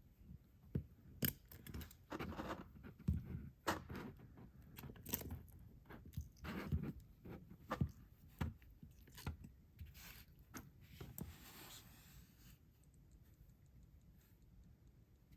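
Hands handling and opening toy packaging: irregular crinkles, clicks and scrapes, with a longer tearing or rustling stretch about ten seconds in, quieter near the end.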